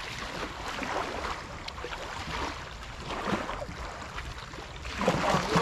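Small river waves lapping and splashing against a sandy bank and rocks in soft, irregular swells, over a steady low rumble of wind on the microphone.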